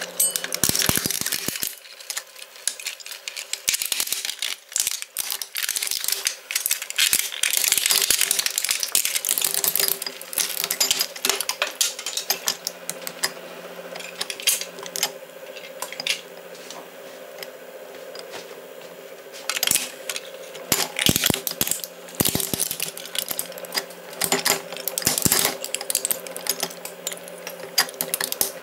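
Twin-shaft shredder running on its electric gear motor, its steel cutters cracking and crunching a plastic toy truck into fragments. Bursts of sharp cracking and rattling pieces come over a steady motor hum, with a quieter spell of mostly hum around the middle.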